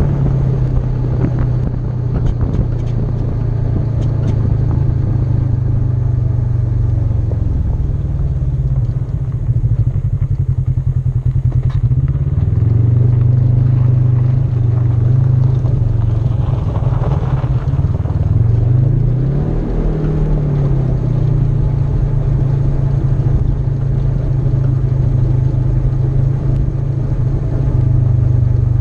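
Polaris RZR side-by-side's engine running while driving on gravel. Its pitch drops as it slows about a third of the way in, then climbs again, with a quick rise and fall in pitch a little past halfway.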